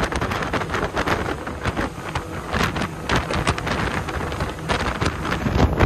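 Wind buffeting the microphone on a fast-running center-console boat, with water hissing and splashing along the hull in many short, sharp slaps.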